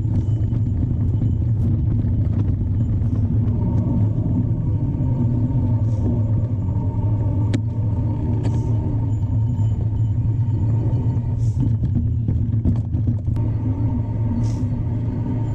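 Steady low rumble of a mountain bike in motion: wind buffeting the microphone and tyre noise, with a few faint clicks.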